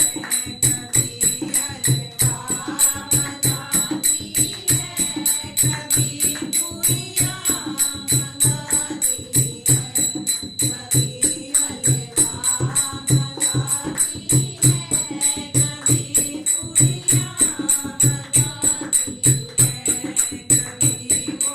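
Hindu devotional bhajan music with a steady quick beat of drum strokes and jingling percussion under a wavering melody line.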